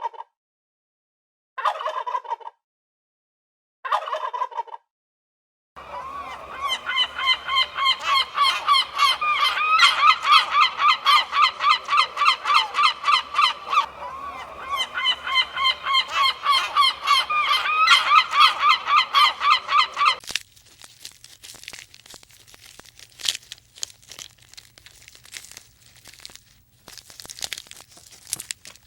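An animal calling: a few separate calls about two seconds apart, then a long, fast run of repeated calls, several a second, that breaks off suddenly about twenty seconds in. After that there is faint crunching and rustling.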